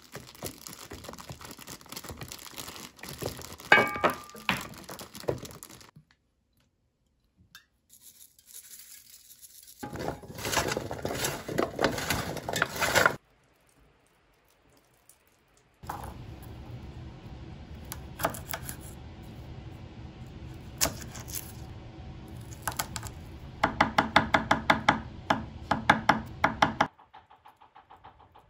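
Food preparation at a kitchen table, heard in short bits broken by brief silences: clattering of dishes and a pan, then near the end a rapid, steady run of knife chops on a cutting board.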